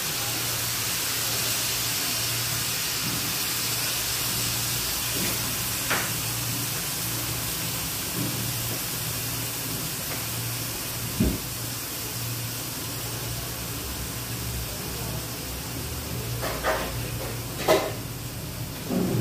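Steady hiss from a wok of rice and vegetables cooking over a lit gas burner, with a few scattered knocks and clicks, most of them near the end.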